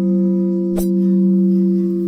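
A one-ton manganese-steel gravel crusher cone hung as a bell, ringing on with a steady low hum and several clear overtones. A short knock comes about a second in.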